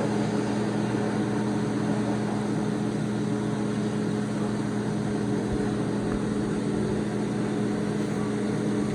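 A steady mechanical hum from a running motor, holding one low pitch with a higher overtone and an even rushing noise, unchanging throughout.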